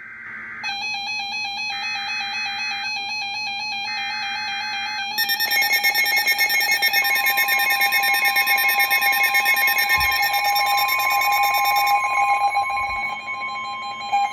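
Emergency Alert System tones: three short screeching bursts of SAME header data in the first five seconds, over a steady tone already sounding. From about five seconds in comes the loud, steady EAS attention tone that introduces a severe thunderstorm warning, with a second pitch joining it a couple of seconds later.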